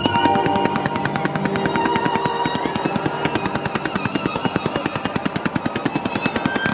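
A starmine fireworks barrage: a rapid string of sharp firework reports, many a second, with classical music from the venue's loudspeakers underneath.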